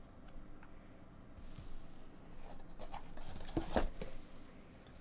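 Hands handling a small cardboard box on a textured rubber mat: scratchy rubbing and scraping with a few soft knocks, loudest a little past halfway.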